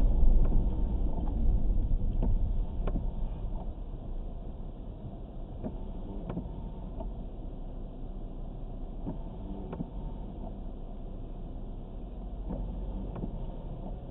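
Car engine and road noise heard from inside the cabin: a low rumble, louder for the first few seconds, then settling to a quieter steady hum as the car slows and comes to a stop. A few faint, irregular clicks are heard throughout.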